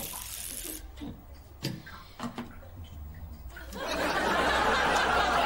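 A few small clicks and knocks, then studio audience laughter swells up loudly about four seconds in.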